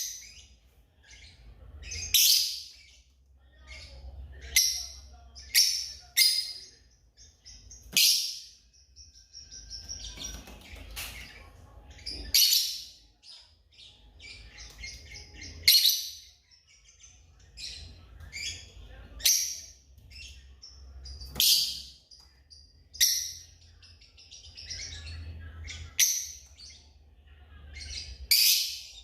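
African lovebirds calling: sharp, shrill chirps every second or two, some in quick runs of several notes, over a faint low rumble.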